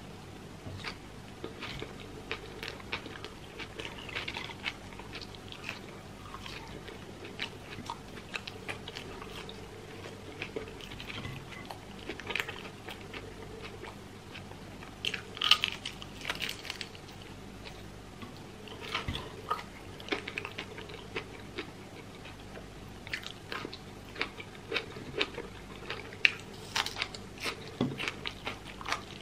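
Close-miked eating: biting into crispy fried chicken, the breaded coating crunching, with chewing in between. The sharpest crunches come about halfway through and again near the end.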